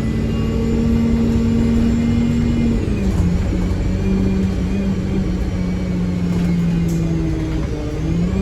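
Stagecoach South bus 26158's diesel engine pulling hard under heavy throttle. Its steady note drops about three seconds in, holds lower, then starts to climb again near the end.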